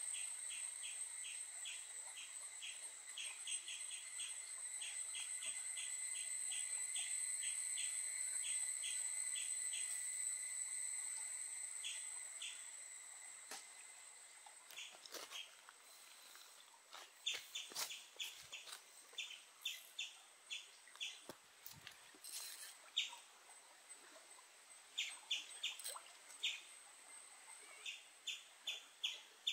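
Small birds chirping in quick runs of short repeated notes over a steady, high-pitched insect drone. The drone fades out about halfway through, and the chirps grow sharper and more frequent after that.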